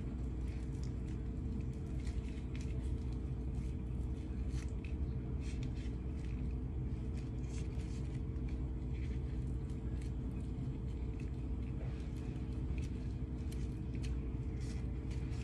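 Steady low hum of a running appliance motor, with scattered light clicks and rustles from a knife and gloved hands trimming raw chicken on a plastic bag.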